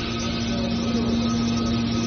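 Hydraulic scrap metal baler running: a steady hum from its motor and pump, with one constant low tone over an even mechanical noise.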